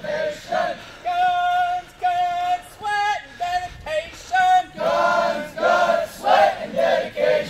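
Marching cadence sung call-and-response by a formation of marching cadets. One voice sings a line with long held notes, then the whole group sings the answer back together about five seconds in.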